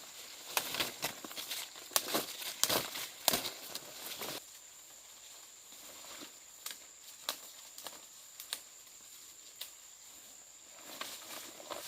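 Irregular crackles and snaps, dense for about the first four seconds and then scattered, over a steady high-pitched insect drone.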